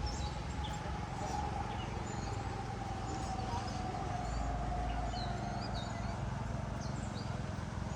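Outdoor background with a steady low hum and a faint held tone that sinks slightly and fades out a little past the middle, with a few faint high chirps scattered through.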